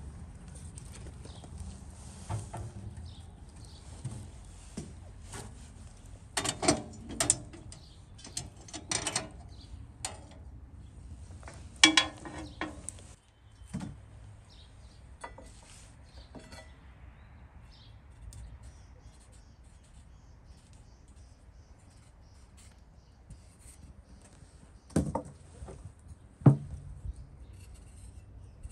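Scattered knocks and clatters of hands-on cooking work, in bunches with quiet stretches between: firewood handled at a metal fire box, and a knife and metal bowls on a wooden table. Birds chirp faintly.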